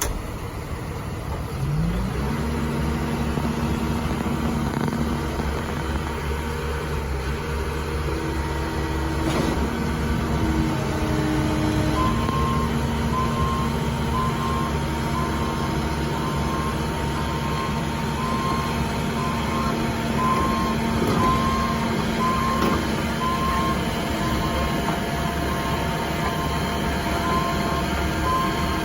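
Caterpillar 310 excavator's diesel engine picking up revs about two seconds in and then running steadily. From about halfway, its travel alarm beeps at an even pace over the engine.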